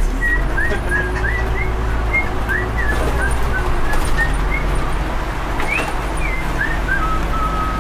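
Bus driving in traffic, heard from the driver's seat: a steady low engine and road rumble, with a string of short high chirping squeaks, a few a second, over it.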